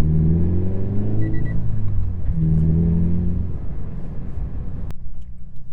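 Scion FR-S engine with an aftermarket GReddy exhaust, heard while the car is driven, its note rising and falling through the revs. A short high beep sounds about a second in, and near the end the sound turns duller and lower.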